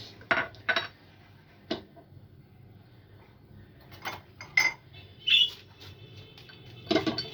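Dishes and kitchen utensils clinking and knocking as they are handled: about six separate short clinks spread out, one ringing briefly about five seconds in.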